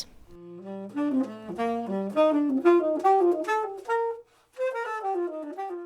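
Saxophone playing a jazzy melody of quick notes over a soft low accompaniment, pausing briefly past the middle before a second phrase.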